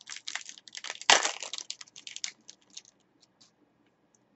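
Foil trading-card pack wrapper being torn open and crinkled in the hands: a dense run of crackles for about two seconds, loudest just over a second in, then a few scattered ticks.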